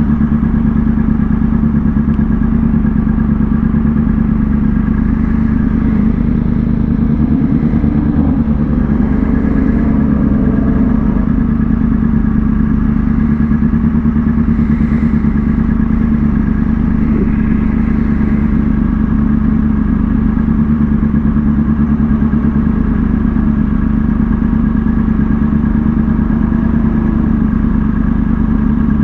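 Kawasaki ZX-6R sportbike's inline-four engine running under way at a steady pitch, held at an even speed.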